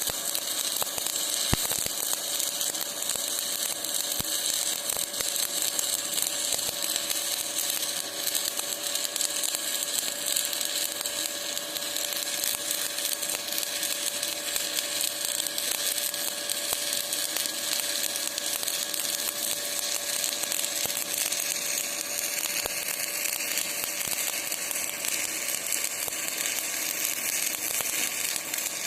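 Stick (shielded metal arc) welding: the electrode's arc crackling and hissing steadily as a bead is laid to fill the joint.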